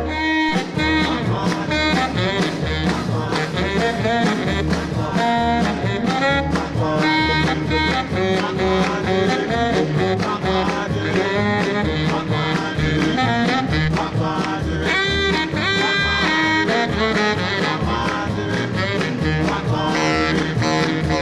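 Instrumental break in a 1950s doo-wop rhythm-and-blues record: a saxophone solo over a steady bass and drum beat.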